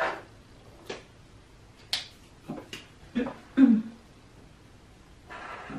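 Felt-tip markers handled on a wooden tabletop: a few sharp clicks and knocks as one is picked from the pile and its cap pulled off, then the marker tip scratching on paper as colouring starts near the end.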